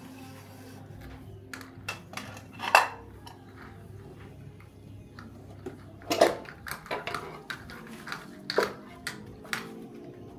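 Dishes and bowls knocking and clinking together as they are washed up by hand, in scattered irregular knocks, the loudest about three and six seconds in.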